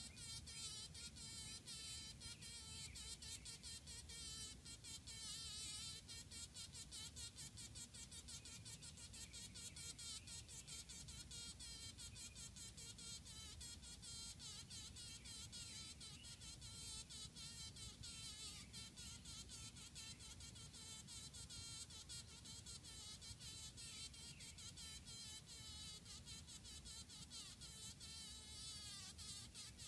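Honey bee buzzing faintly and continuously, its pitch wavering up and down as it struggles while caught in a spider's web.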